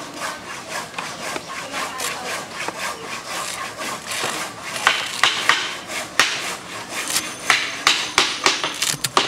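Okra pods being sliced by hand against the upright iron blade of a boti: a run of crisp cutting strokes, coming closer together in the second half.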